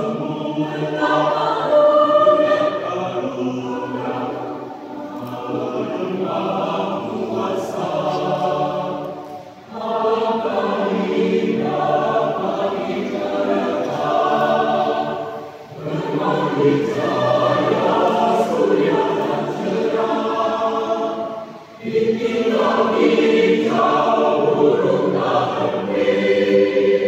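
Mixed choir of men's and women's voices singing a church song in parts, in phrases of about six seconds with a short breath between them.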